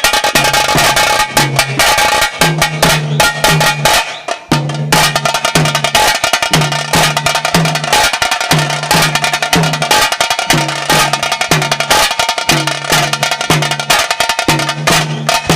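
Tase drums beaten with thin sticks in a fast, driving rhythm for a Pili Nalike tiger dance, with a dense rattle of stick strokes over a repeating low drum pattern. The beat breaks off for a moment about four seconds in, then carries on.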